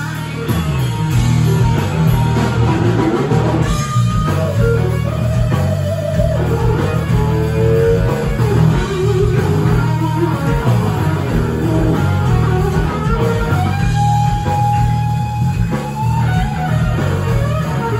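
Live blues-rock power trio playing without vocals: electric guitar lead with bending, held notes over bass guitar and drum kit, one note sustained for a couple of seconds near the end.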